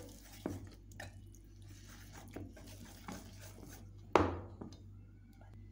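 Wire whisk stirring thick gram-flour batter in a stainless steel bowl, faint, with a few scattered light clicks and one louder knock about four seconds in.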